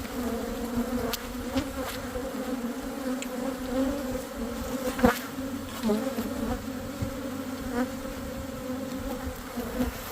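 Honeybees from an open hive buzzing in a steady, dense hum. A few faint clicks sound over it, and there is one sharp knock about five seconds in.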